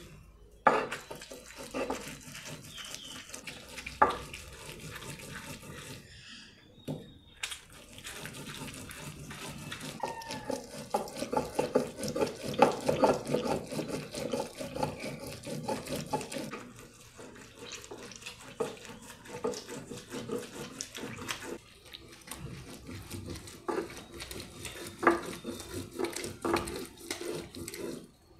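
Stone mano rubbed back and forth over a stone metate, grinding boiled chile cascabel and tomato into a wet paste: a wet, gritty stone-on-stone scraping in quick repeated strokes, with a few sharp knocks of the mano against the stone.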